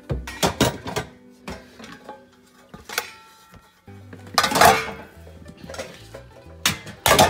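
Metal pots, pans and glass pan lids clanking as they are moved about in a kitchen cabinet, in several separate clatters, the loudest about four and a half seconds in and near the end. Background music plays underneath.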